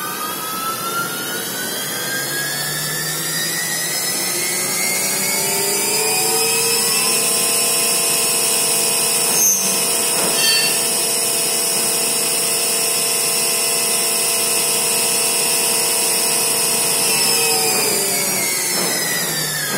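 CNC milling machine spindle motor on a variable speed drive, whining as it speeds up toward a commanded 4000 rpm, holding a steady pitch, then winding down near the end. A single click sounds about halfway through.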